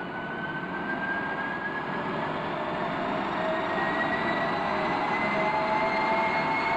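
Gas turbine jet engine spooling up: a whine that rises steadily in pitch over a broad rushing noise, growing louder throughout.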